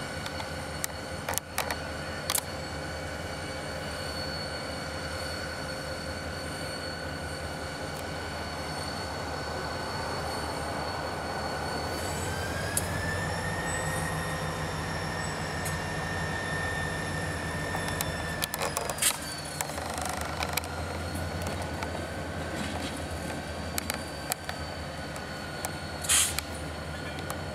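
Two EMD GP40 diesel locomotives, each with a turbocharged 16-cylinder 645 engine, running with a low rumble and a steady high turbo whine. About twelve seconds in, the engine note and whine climb as the throttle is opened, hold for about six seconds, then settle back down. A few sharp clanks and a brief squeal are heard as they roll past.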